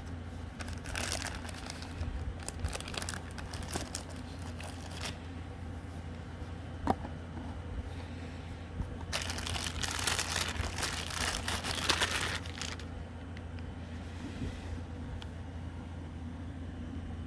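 Packaging being handled and crinkled while a guitar pedal is unboxed, in two long spells of rustling with a sharp click between them, over a steady low hum.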